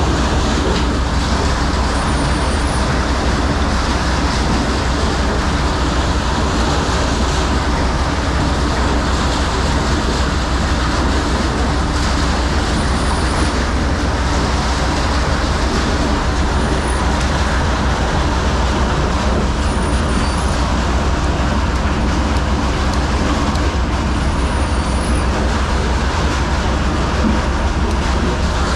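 A machine running steadily and loudly, a constant deep hum under an even mechanical noise, without a break.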